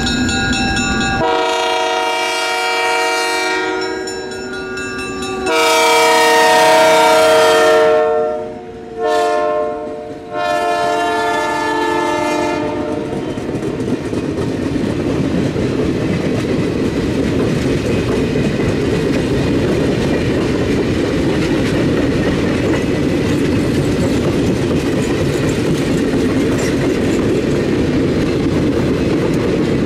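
Diesel locomotive's multi-chime air horn sounding long, long, short, long, the grade-crossing signal, as the train approaches. After the horn, the passenger cars roll past with a steady rumble and the clickety-clack of wheels over rail joints.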